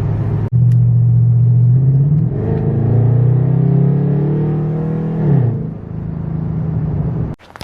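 Chevy Caprice PPV's L77 V8 running through bullet mufflers with a steady low drone. About two seconds in it accelerates, its pitch climbing for about three seconds before dropping back quickly and settling. The sound cuts off suddenly near the end.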